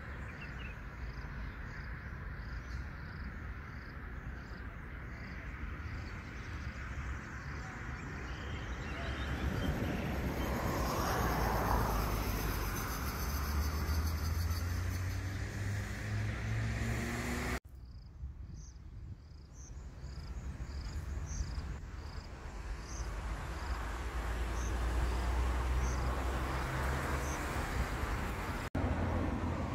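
Vehicle engine running with a steady low hum that rises briefly in pitch midway, over outdoor background noise. A high, regular chirp repeats about every three-quarters of a second, and the sound breaks off abruptly twice, near the middle and near the end.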